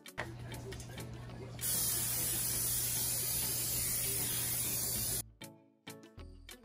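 Aerosol cooking-oil spray hissing out of the can in one long, steady burst of about three and a half seconds, cutting off sharply.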